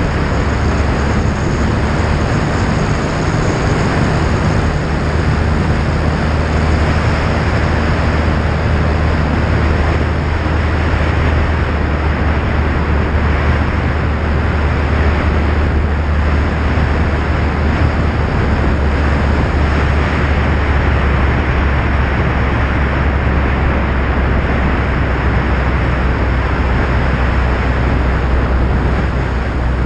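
Jabiru J160 light aircraft in flight: its four-cylinder Jabiru 2200 engine and propeller make a steady low drone under heavy wind rush on the microphone.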